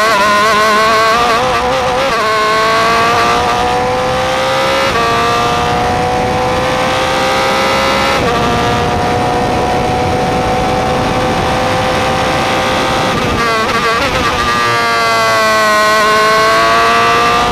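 Onboard sound of an Atlantic open-wheel race car's engine at racing speed. Its pitch climbs and steps down at upshifts about two, five and eight seconds in, then holds through a long pull. About thirteen seconds in it falls through quick downshifts under braking, then climbs again as the car accelerates out of the corner.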